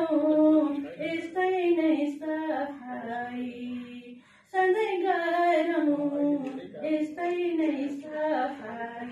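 A woman singing lines of a Nepali poem unaccompanied, to a folk-song tune, holding and gliding between drawn-out notes. There is a short breath pause about four seconds in.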